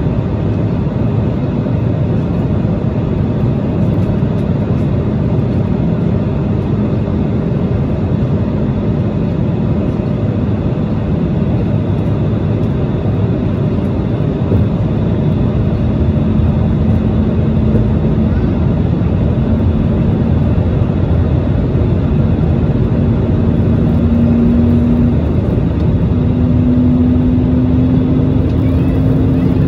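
Cabin noise of an Airbus A320neo with CFM LEAP-1A engines: a steady, loud rush of airflow and engine drone. An engine tone climbs slowly in pitch over the second half.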